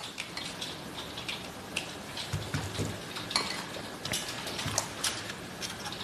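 Cable connectors and small plastic gadgets being handled: a string of light clicks, taps and rustles as a plug is fitted into a socket.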